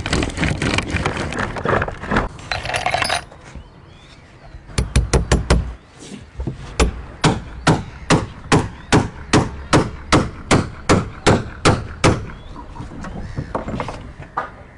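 A hand tool boring into the wooden planking of a clinker-built boat hull, a dense rasping for about three seconds. After a short pause, hammer blows on the hull: a quick run of five, then a steady series at about two and a half blows a second for some six seconds.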